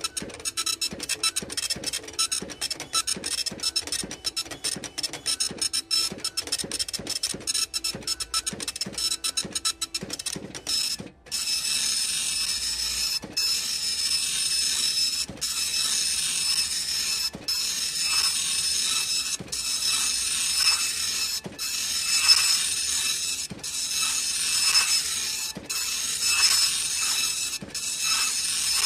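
Cash register's receipt printer printing a receipt. For about the first eleven seconds it makes rapid, dense clicking. Then it runs as a steady buzzing whir, broken by short pauses about every two seconds.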